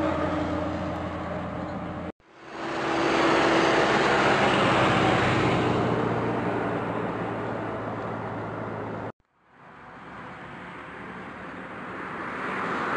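Road traffic passing on a highway: vehicles swell up and fade away, a loud pass-by a second or so after the first break and another approaching near the end. The sound drops out briefly twice, at the cuts between shots.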